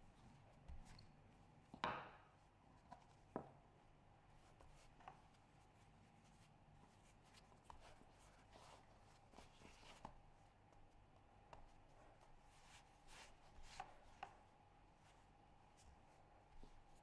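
Faint knocks and taps of a small plastic rolling pin and hands on a marble countertop while rolling and folding bread dough. There is one sharp knock about two seconds in and another shortly after, then lighter scattered taps over a faint steady hum.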